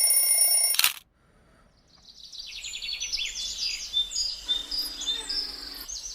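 An alarm ringing that cuts off about a second in, then, after a short silence, birds chirping in quick high twitters.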